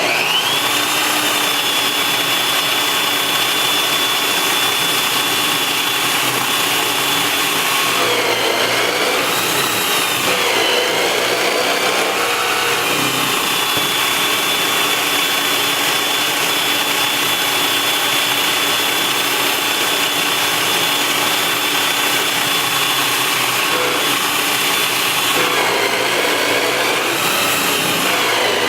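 Electric power tool cutting wood: the motor spins up to a steady high whine over a wide rasping noise, and the pitch sags and recovers twice as the cut loads it.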